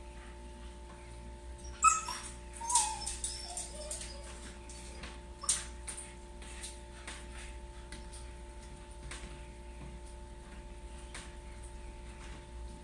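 Shiba Inu whimpering in frustration at being left home alone: a sharp yip about two seconds in, then a few short falling whines, with scattered light clicks.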